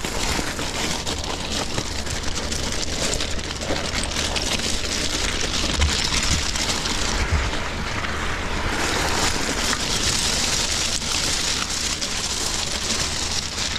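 Bicycle tyres rolling over beach pebbles: a steady crunching clatter of stones shifting under the wheels, with a low rumble underneath.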